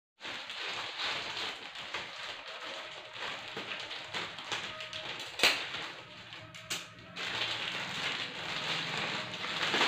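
Plastic courier mailer bag crinkling and rustling as hands handle and cut it, with a sharp click about halfway through and another shortly after.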